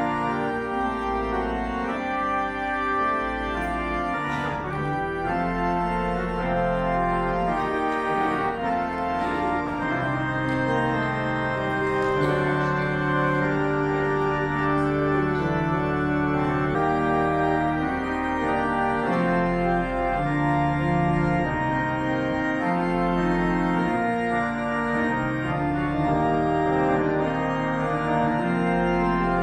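Church organ playing offertory music, slow sustained chords that change every second or two.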